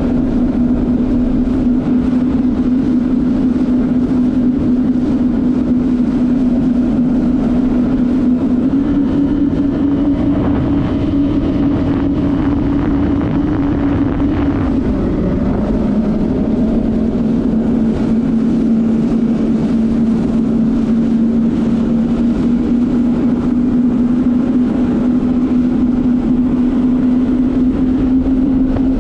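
2006 Yamaha WaveRunner VX110 Sport personal watercraft's four-stroke engine running at a steady cruising speed over open water. Its pitch eases off briefly about halfway through, then holds steady again and rises slightly near the end.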